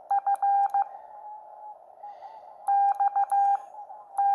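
Morse code sidetone from a Xiegu transceiver, keyed by hand on a Bencher BY-1 iambic paddle: one steady beep tone sent as dots and dashes in three groups, spelling out the call sign M0FXB. The transceiver is in CW training mode, so nothing is transmitted.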